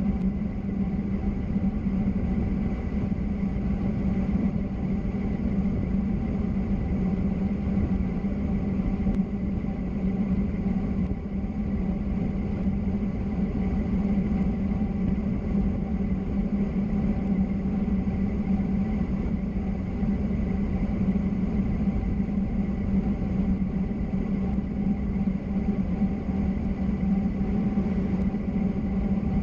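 Steady low drone of travel at speed, with fainter steady tones above it and no breaks or changes.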